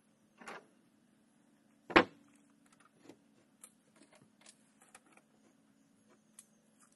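A short scrap of 2x4 set down with a single sharp wooden knock on the barn-wood lid about two seconds in, after a brief scrape. Light clicks and taps follow as the piece is handled and lined up on the boards.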